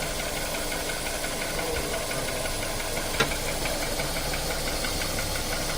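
Car engine idling steadily, with one sharp click about three seconds in followed by a faint, regular ticking.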